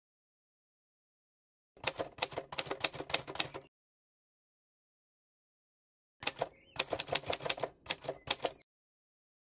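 Typewriter keystroke sound effect: two bursts of rapid key clicks, each about two seconds long, with silence between. It goes with captions being typed out letter by letter on screen.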